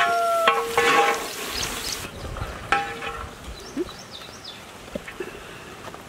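Long metal spatula scraping and knocking against a large metal cooking pot while chicken fry is stirred over the fire, with a ringing scrape loudest in the first second and another at about two and a half seconds; between and after the scrapes the contents sizzle more quietly.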